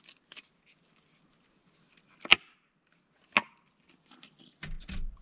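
Sharp knocks as an opened metal Spam can, held upside down, is smacked by hand to loosen the meat inside. There are four or so distinct knocks, the loudest about two seconds in, then a few softer knocks near the end.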